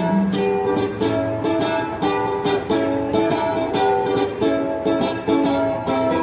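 Instrumental music: a small string instrument strumming chords in a steady rhythm, with no singing.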